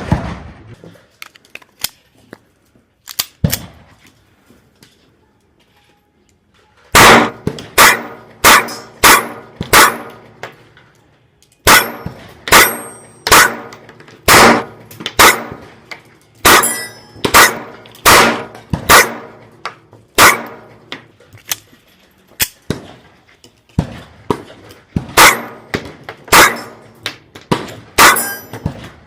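Airsoft Glock 19 pistol with a ported slide firing a long string of single shots, about one or two a second with short pauses, each a sharp crack with a brief metallic ring. A few quiet clicks of handling come before the shooting starts, about seven seconds in.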